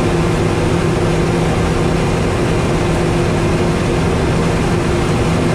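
Claas Tocano combine harvester running while it unloads grain through its unloading auger into a trailer: a loud, steady machinery drone with a constant hum.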